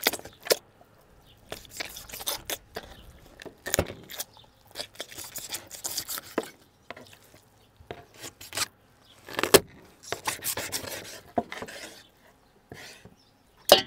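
Serrated kitchen knife sawing through a raw whole chicken on a wooden cutting board: irregular rasping strokes through skin, flesh and rib bones, broken by several sharp cracks and knocks, the loudest about two-thirds of the way in and another near the end.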